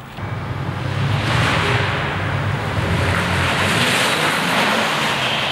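Pickup truck engine running as the truck drives, with a steady low hum; a broad rushing noise, likely tyres on a gritty concrete floor, swells in about a second in.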